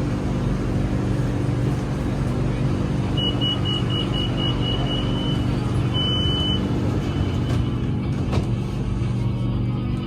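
Interior of a BTS Skytrain EMU-B1 electric train running between stations: a steady hum and rumble. Near the middle come a quick series of short high beeps, then one longer beep.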